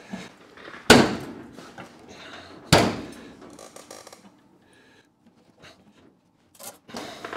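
Two sharp knocks on sheet metal, about two seconds apart, as the front end of a new steel sill panel is knocked into place against the car body, each ringing briefly. A few fainter clunks follow near the end.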